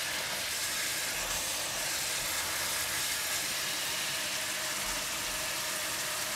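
Thick kam heong sauce of garlic, shallots, curry powder and soy sauce sizzling and bubbling steadily in a hot wok, a continuous even hiss.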